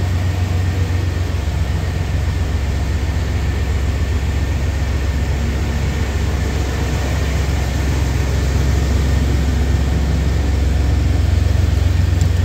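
An engine running steadily at idle, a low, even hum that grows a little louder in the last few seconds.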